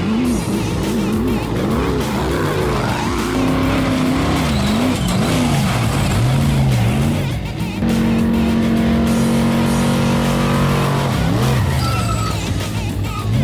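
Off-road race vehicle engine revving up and down over and over, holding a steady high pitch for a few seconds past the middle before swinging again, with music underneath.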